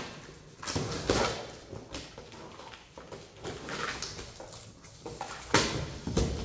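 Handling noise from unpacking a motorcycle top box: packaging rustling, with a few sharp knocks and thuds, the loudest about a second in and near the end.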